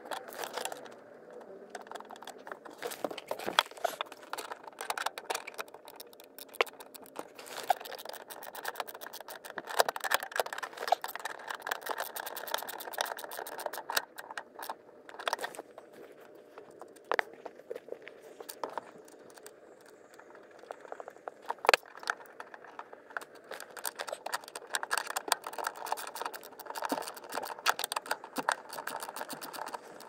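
Hand tools working on the two 10 mm bolts that secure a clutch master cylinder: a ratchet clicking in quick runs, mixed with metallic rattles and scrapes of the socket and bolts.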